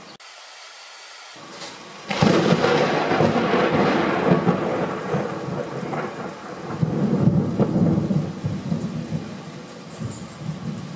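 Steady rain, then about two seconds in a sudden, loud peal of thunder that rumbles on for several seconds over the rain.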